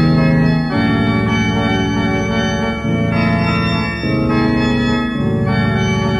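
Slow, sustained organ-sound keyboard chords, each held for a second or two before moving to the next, about four changes in all.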